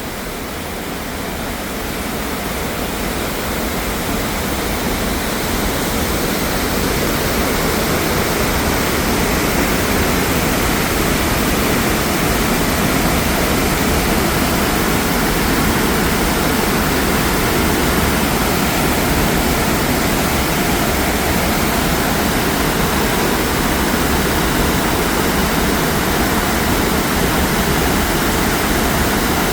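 Waterfall: a steady rush of falling water, growing a little louder over the first few seconds and then holding level.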